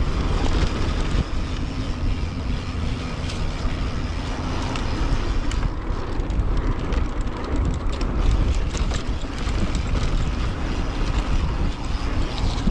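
Wind rushing over the camera microphone of a mountain bike rider descending a dirt trail, a steady low rumble, with the tyres running over dirt and the bike rattling. Quick clicks and rattles come thick between about five and ten seconds in.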